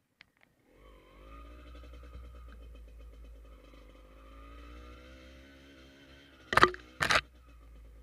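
Motorcycle engine running steadily under way, with low wind rumble on the microphone; it comes in about a second in after a couple of faint clicks. Near the end, two loud sharp knocks half a second apart.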